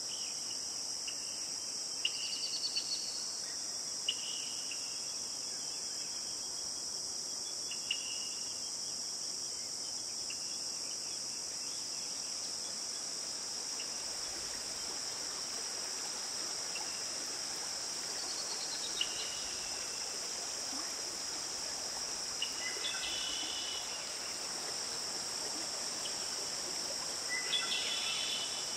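A steady, high-pitched chorus of crickets, with scattered short bird calls over it: a few quick falling notes, and little clusters of chirps about two-thirds of the way in and near the end.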